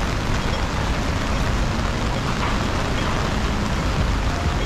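Rain falling on an open umbrella held overhead, a steady dense hiss, with wet-road street traffic running underneath.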